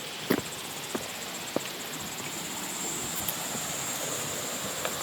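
Footsteps on a hiking trail, a few separate sharp steps or scuffs, over a steady high-pitched insect trill.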